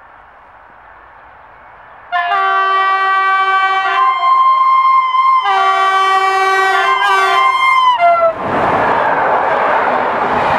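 PKP Intercity EP09 electric locomotive sounding its multi-tone horn in two long blasts, the second dropping in pitch as it ends while the locomotive passes. Then the loud rushing noise of the express coaches going by at speed.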